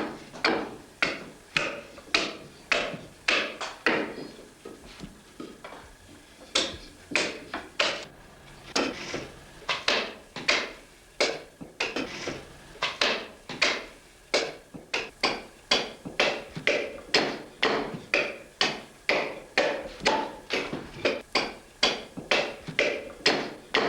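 A hand tool striking fresh chestnut wood in a steady rhythm, about two sharp blows a second, as a saddle-tree blank is shaped by hand; there is a short lull about five seconds in.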